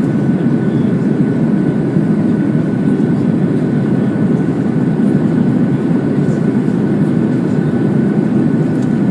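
Steady engine and airflow noise from an Airbus A330 jet airliner during its takeoff run or climb, with a faint steady whine above it.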